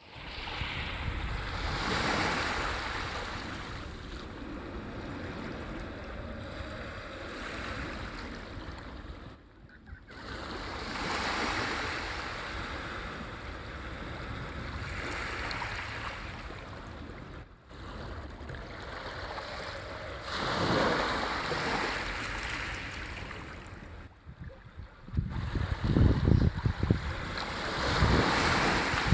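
Sea waves washing ashore, a steady rush that swells and ebbs about every nine or ten seconds. Wind buffets the microphone in the last few seconds.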